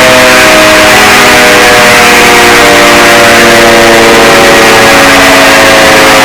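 Emergency alert alarm tone: several loud droning tones sliding slowly downward in pitch over a dense hiss.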